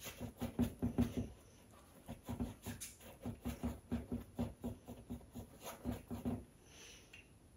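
A flat paintbrush scrubbing acrylic paint onto a stretched canvas in quick crisscross strokes, about four to five a second. The strokes pause briefly after about a second, then go on and stop near the end.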